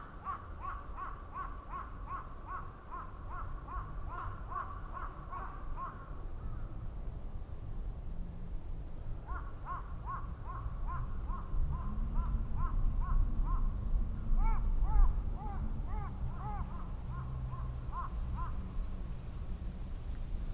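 Birds calling in long runs of short repeated calls, about three a second, with a pause in the middle. A second, lower-pitched caller joins briefly later on, while a low rumble swells and fades.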